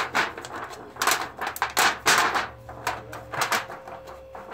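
Disposable aluminium foil pan and its clear plastic lid being handled, giving irregular crinkling, clicking and clattering.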